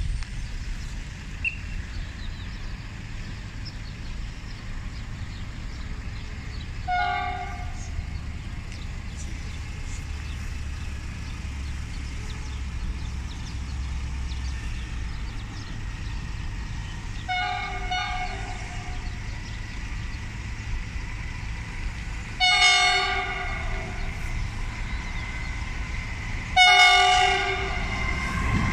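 ONCF electric locomotive E-1479 sounding its horn four times as the line train approaches, the blasts growing louder, as the driver's greeting. A steady low rumble runs underneath. The last blast, near the end, is the longest.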